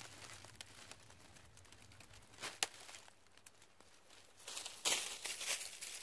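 Dry leaves and dead grass rustling and crackling as they are disturbed: a short burst a little after two seconds with one sharp click, then a longer, louder bout from about four and a half seconds in.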